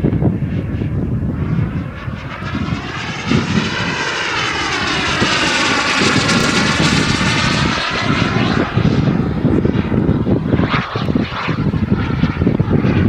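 A KingTech K-45G2 model jet turbine, in a Mini Avanti S RC jet, runs steadily in flight as it passes by. Its sound sweeps up and back down in pitch through the middle of the pass.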